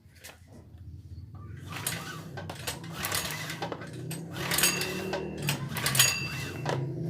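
Metal tools and parts clinking and clattering irregularly, a few strikes ringing briefly, as a generator engine is worked on, over a low steady hum that gets louder after about two seconds.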